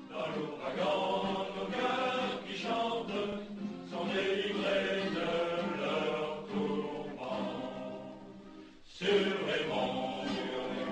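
Soundtrack music: a choir singing slow, held notes. It fades briefly about eight and a half seconds in, then comes back.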